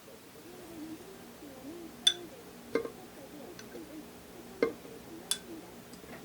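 Kitchenware clinking and knocking several times in a small room, the sharpest clink about two seconds in, over faint background music.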